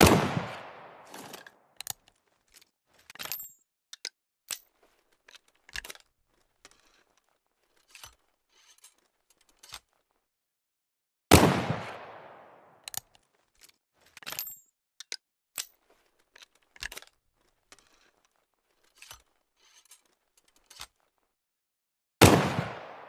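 Flintlock pistol fired three times, about eleven seconds apart, each loud report dying away over a second or two. Between the shots come short metallic clicks and scrapes of the pistol's lock being handled.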